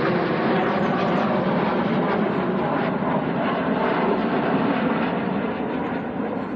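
Formation of military jets passing overhead: a steady rushing roar of jet engines that fades a little near the end as the aircraft fly away.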